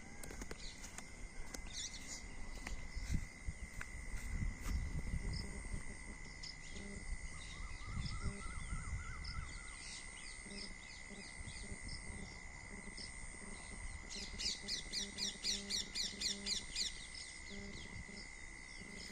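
Outdoor rural ambience with birds calling; near the end one bird gives a fast run of repeated chirps, about five a second. A steady high tone sits under it throughout, with low rumbles of wind or handling in the first few seconds.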